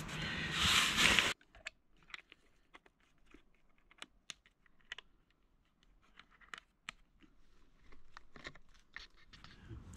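Crinkly rustling of a bivvy bag and inflatable sleeping mat being handled, which cuts off abruptly about a second in. After it comes near silence with scattered faint clicks, and a faint hiss near the end.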